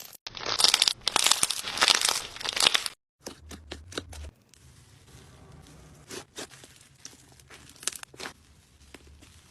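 Slime being squeezed and pressed by hand: dense crackling and crinkling for about three seconds, then a sudden cut to a much quieter stretch of scattered clicks and pops.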